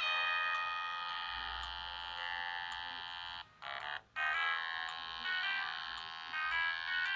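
Ringtone melody played through the small loudspeaker of a Siemens S55 mobile phone, with no bass: a long held chord that slowly fades, two short breaks about three and a half seconds in, then quicker changing notes.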